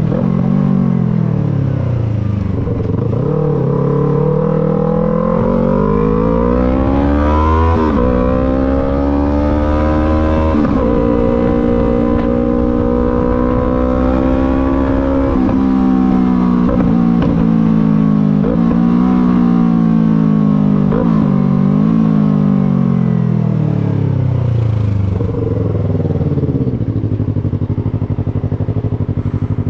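Yamaha MT-03 motorcycle engine under way: it slows at first, then pulls up through the revs with brief dips about halfway through as gears change or the throttle is eased. It then drops away and settles to a low, steady run near idle near the end.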